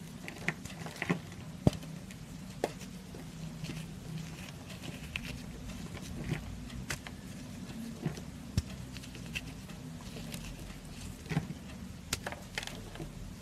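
Fingers squeezing and breaking apart a lump of dry, crumbly pressed soap: irregular crisp crackles and crunches of the soap crumbling.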